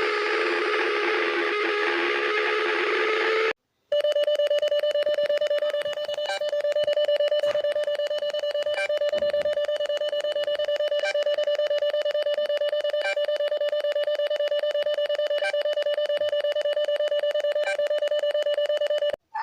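Emergency alert alarm tone: a steady, buzzy electronic tone held for about fifteen seconds. Before it, a noisier, wavering sound cuts off about three and a half seconds in, followed by a brief silence.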